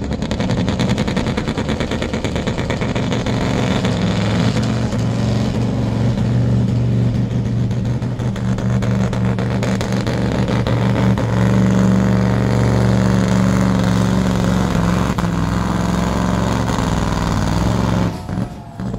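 Scania V8 diesel engine of a truck-pulling truck running flat out under full load as it drags the pulling sled, a loud, steady note. It cuts back suddenly near the end as the pull finishes.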